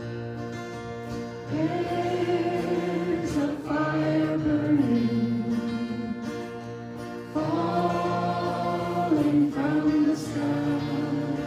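A worship song sung over acoustic guitar, with long drawn-out sung notes that enter about a second and a half in and again about halfway through.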